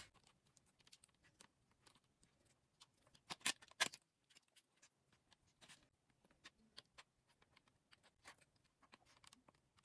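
Faint, scattered clicks and taps of the Gorillapod 3K kit and its packaging being handled, with a few sharper clicks around three and a half to four seconds in.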